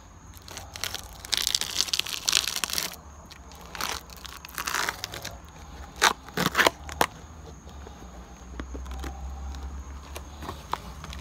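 Worn Timberland boat shoes scraping and scuffing against a concrete step, a rough, crunchy grinding of soles that are breaking apart. About six seconds in come three sharp knocks of the shoe striking the step, followed by softer scuffing.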